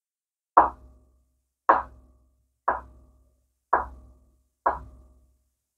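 Chef's knife cutting through a tube of egg tofu and striking a wooden cutting board: five knocks about a second apart, each with a short ring.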